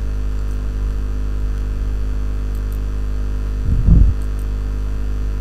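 Steady electrical mains hum with its evenly spaced overtones, fairly loud, from the recording setup. A brief low sound breaks in about four seconds in.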